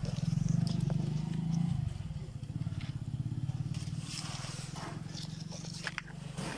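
An engine running steadily, louder for the first two seconds, with rustling and brushing of leaves and clothing against the phone from about four seconds in.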